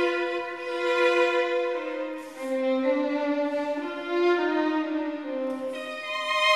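Background music: a violin playing a slow melody of long held notes.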